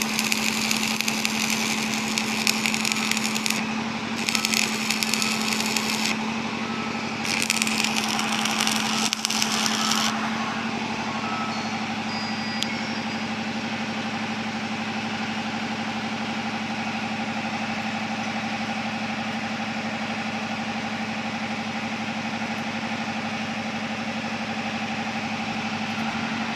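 Electric arc welding with a stick electrode: three spells of sizzling crackle, each a few seconds long, over the steady hum of an engine running. After about ten seconds the crackle stops and only the engine hum goes on.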